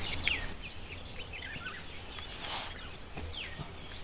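Outdoor ambience: a steady, high-pitched insect trill, with short falling bird chirps scattered over it.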